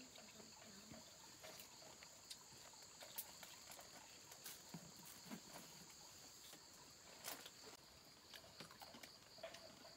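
Very quiet: a faint steady high-pitched insect chirring, with scattered small clicks and rustles of hands handling food.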